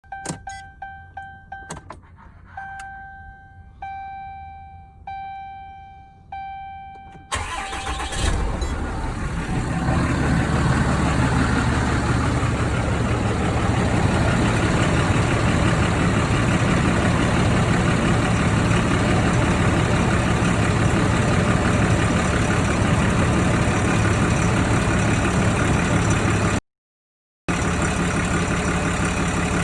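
A few clicks and a dashboard chime ringing about once a second, then the 2012 Dodge Ram 2500's 6.7-litre Cummins inline-six turbo-diesel cranks and starts about seven seconds in and settles into a steady idle. The idle carries a rattle that the owner suspects comes from an accessory driven by the serpentine belt.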